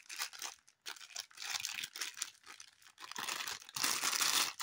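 Foil-lined plastic wrapper crinkling and rustling as hands pull it open, in irregular bursts, loudest near the end.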